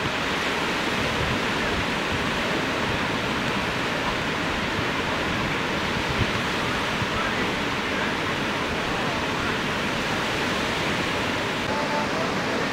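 Steady rushing wash of ocean surf breaking on a beach.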